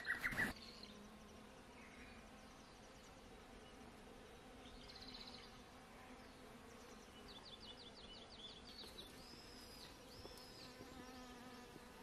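Faint, steady low buzzing of a foraging honeybee. A few faint high chirps come in about two thirds of the way through.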